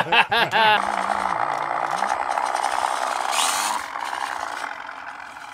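Scale RC crawler with metal axles and shafts being driven: its electric motor and gearing whir steadily, the pitch stepping up about two seconds in, with a short hiss a little past three seconds.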